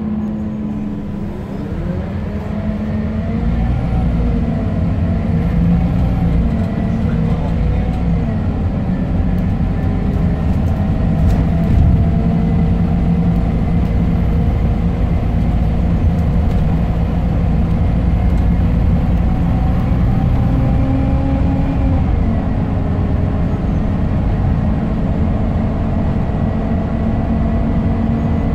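Scania K270UB bus's five-cylinder diesel engine heard from inside the saloon. It pulls away from a standstill about a second in, rising in pitch through the gears, then settles to a steady cruise with low road rumble. Its pitch drops about three quarters of the way through.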